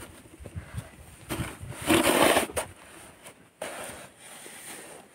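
Snow crunching underfoot in deep, packed drifts: a few rough scrunches, the loudest about two seconds in.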